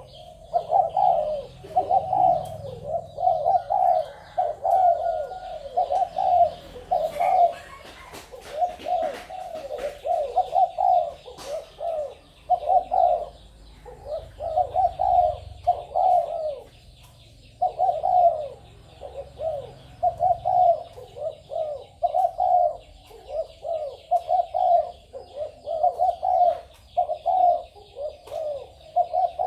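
Spotted doves cooing over and over, one short coo phrase after another with brief pauses between runs.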